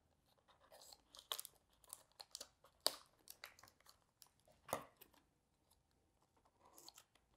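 Scissors snipping cardboard and tape, with faint crinkling in between; a few sharp snips stand out, the clearest about three and five seconds in.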